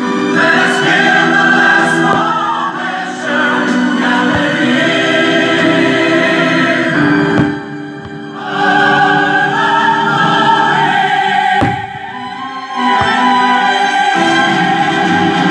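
Choral music with orchestra, a choir singing held notes. A few sharp bangs of fireworks bursting cut through it, one about four seconds in and others near 7, 12 and 13 seconds.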